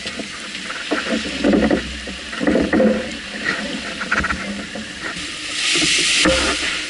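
Water rushing and splashing along a sailboat's hull as it sails heeled in choppy sea, with waves slapping irregularly against the side. A louder hiss of spray rises about five and a half seconds in.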